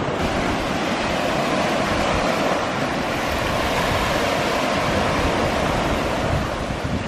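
Small Gulf of Mexico waves washing up over a shell-covered shore, swelling in hiss about halfway through as a wave runs in, with wind rumbling on the microphone.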